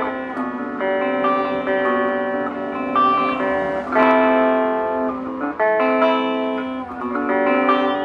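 LTD electric guitar played through a Belcat G-10 practice amplifier on its clean tone, overdrive off, with treble, bass and volume at moderate settings. Picked single notes and ringing chords, with a strummed chord about four seconds in as the loudest moment.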